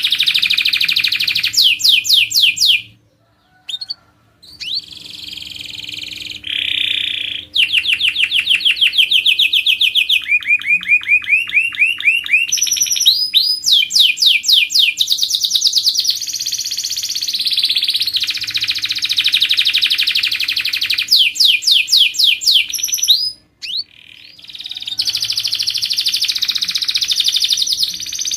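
Canary singing a long song of fast rolling trills and rapid repeated chirp phrases, with two short pauses, about three seconds in and near the end.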